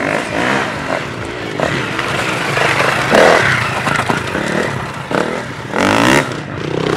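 Enduro dirt bike engines revving hard under acceleration, the pitch rising and falling with throttle and gear changes, with louder surges about three seconds in and near the end.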